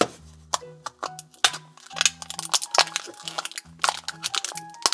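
Plastic shrink wrap crinkling and crackling in quick irregular snaps as fingers pick at the wrapping of a toy pet carrier, over light background music.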